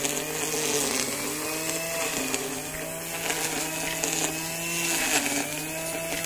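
Ozito 500 W electric line trimmer running as it cuts grass, a motor whine whose pitch sags and recovers a few times as the spinning line takes load.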